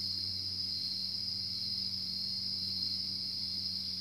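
A steady, unchanging high-pitched trill-like drone with a low steady hum beneath it, an unidentified sound at night that is fading.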